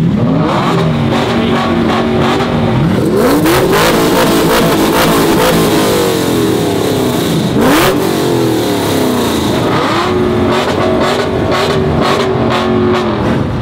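A car engine revved hard over and over: each time it climbs quickly, holds at high revs for a second or two, then drops, about five times.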